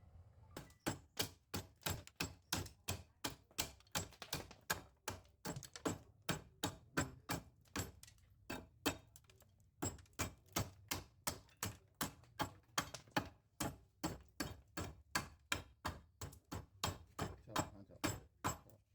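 Steady hammering on wood: sharp blows about two to three a second, with a short pause about halfway through.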